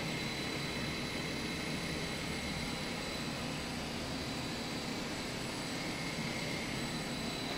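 Belt-driven horizontal balancing machine spinning a rotor at its measuring speed of about 2000 rpm: a steady whir with a thin high whine. The whine stops near the end, as the measurement is complete and the drive is due to be stopped.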